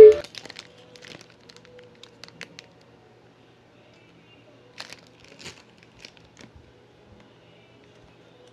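Plastic packaging crinkling and rustling in short, faint, scattered bursts as it is handled and opened. It opens on the cut-off tail of a brief, loud pitched sound.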